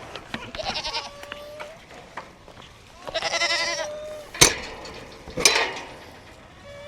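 Goats bleating: a fainter bleat about half a second in, then a loud, long, wavering bleat about three seconds in. Two sharp knocks or bangs follow near the middle.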